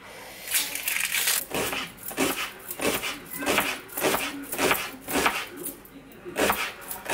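Chef's knife slicing an onion on a cutting board, the blade knocking on the board about twice a second in a steady run of cuts.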